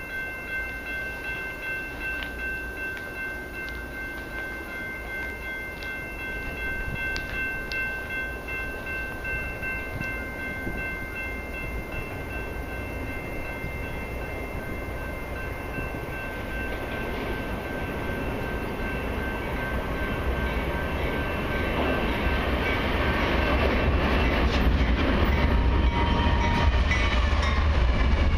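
An eastbound CN freight train approaching and its lead diesel locomotive passing: a rising low rumble that grows loudest near the end. Through the first half a set of steady high ringing tones pulses about twice a second, then stops.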